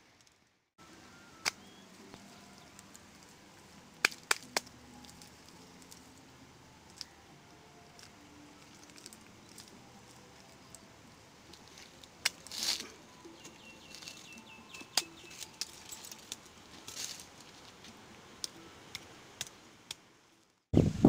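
Hands patting and smoothing wet clay: quiet background with scattered sharp clicks and a few soft slaps at uneven intervals.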